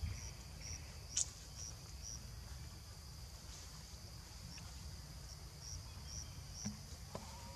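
Insects chirping: a short high chirp repeating about twice a second, breaking off for a few seconds in the middle, over a steady high insect hum. A single sharp click about a second in.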